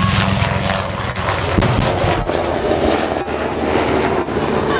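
Aircraft engine running loud and steady, a continuous drone with a low hum.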